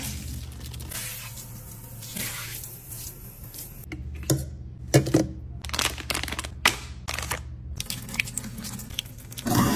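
Crackling, clicking and crinkling of plastic being handled at a stainless-steel kitchen sink: a clear plastic disposal splash guard, then a drain-cleaner pouch pushed into the garbage disposal. The crackles come in a quick run in the middle, over a steady low hum.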